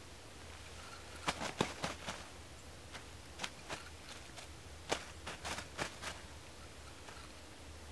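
Spinning reel being cranked in short spells during a twitch-and-pause lure retrieve, giving irregular clusters of sharp clicks.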